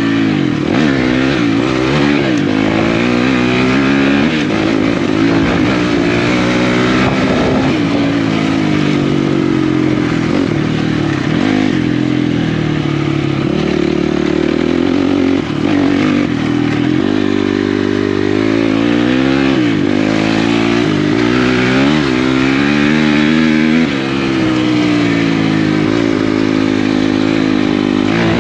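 Honda CRF250X and Kawasaki 450R engines running hard, with the revs climbing and dropping again and again as the riders accelerate, shift and back off. There are no pauses.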